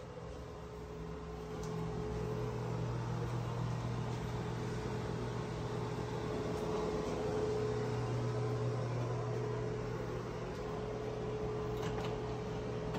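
A fan running with a steady hum and a higher tone above it, getting louder about two seconds in.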